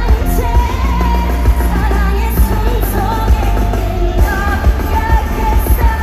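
Loud live K-pop concert music over the arena sound system: women singing over a heavy bass line and a driving beat.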